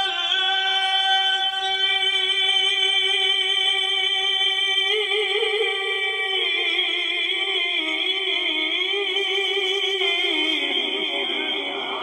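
A man's melodic Quran recitation (qirat): one long, ornamented held phrase that steps up slightly about five seconds in, then winds slowly downward in wavering steps.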